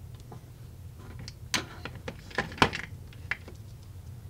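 A run of sharp clicks and taps as a small printed circuit board is handled and set down on a work mat, the loudest about two and a half seconds in, over a low steady hum.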